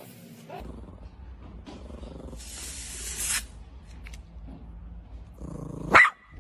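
A cat purring steadily, with about a second of hissing noise around the middle and a short, loud rising cry near the end.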